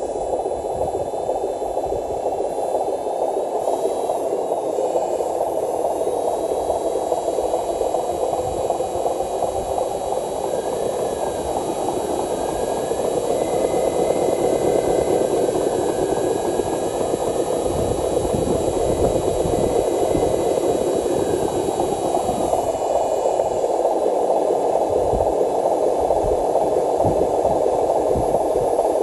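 Small RC trucks' electric motors and gearboxes running steadily with a grinding hiss as the trucks crawl over dirt mounds, with a faint whine that rises and falls slightly partway through.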